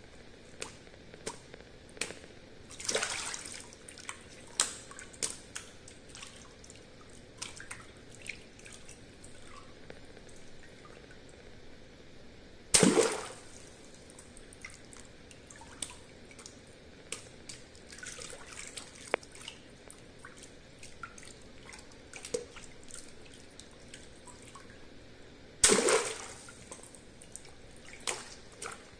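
Water-filled latex balloons squeezed and popped by hand: two sharp pops, near the middle and about three-quarters through, each followed by a brief splash of water. Dripping, small splashes and rubber squeaks and clicks from handling fill the gaps between.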